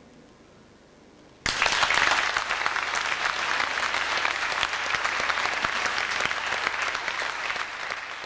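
Audience applause: after about a second and a half of quiet, many people break into clapping all at once, a dense, steady clatter that carries on and eases slightly toward the end.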